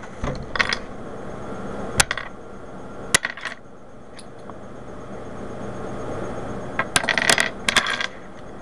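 Loose plastic pieces of a disassembled Rubik's Cube clicking and clattering as they are picked up and set down on a tabletop while being sorted: a few single clicks in the first seconds, then a quick run of clatter near the end.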